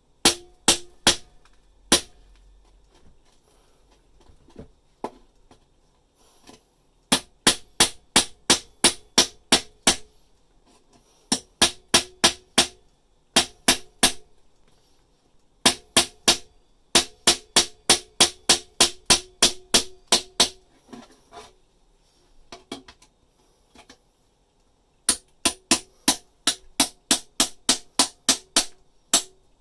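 A steel hammer striking the back of an electrician's knife blade (Denko Mac), driving it through the wooden framing behind plasterboard. The blows come in quick runs of about three a second, each with a short metallic ring, in five bursts with pauses between.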